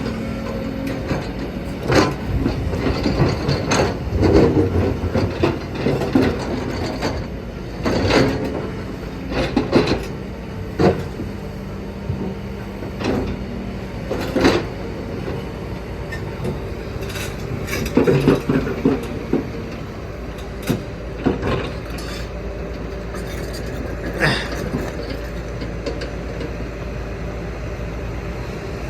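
Kobelco hydraulic excavator working: its diesel engine runs steadily under a string of irregular clanks and knocks from the bucket and rocks, thinning out over the last several seconds.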